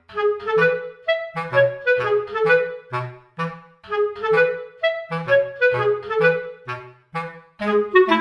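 Background music: a bouncy tune of short, detached woodwind notes over a low bass note that repeats on the beat.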